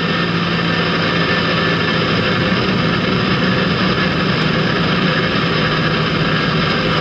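Semi truck cruising at highway speed: a steady low engine drone under even road noise.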